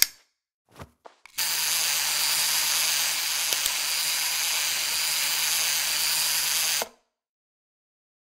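Clockwork toy mouse's wind-up motor whirring steadily with a low hum, starting after a couple of faint clicks and cutting off abruptly after about five and a half seconds.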